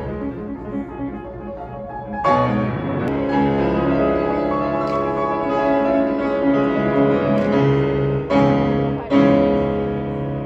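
Grand piano played solo: held chords, with a new chord struck about two seconds in and two more near the end, the last the loudest. These are the closing chords of a piece.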